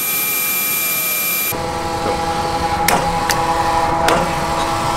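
Petrol pump dispensing fuel into a car: a steady mechanical hum with several held tones. The sound changes abruptly about a second and a half in. A few sharp clicks follow.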